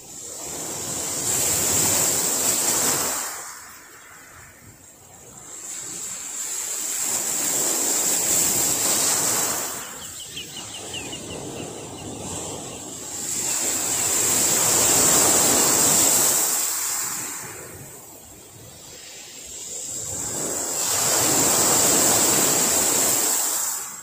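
Small sea waves breaking and washing up and back on a gravel beach. The surf swells and fades in four slow surges, about one every six or seven seconds, each with a hissing wash.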